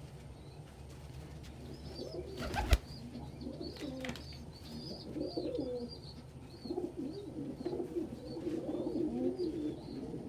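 Domestic pigeon cooing repeatedly in low, gliding phrases, with faint short high chirps above and one sharp knock a little under three seconds in.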